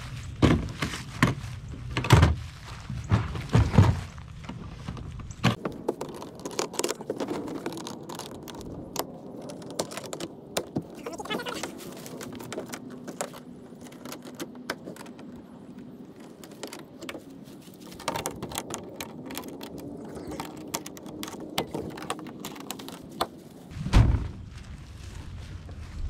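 Easy Eddy three-piece modular paddle board's hard shell being handled: loud hollow knocks in the first few seconds as the sections are latched together, then scattered clicks and knocks as the board is worked on and turned. One loud thump comes near the end as the board is lifted.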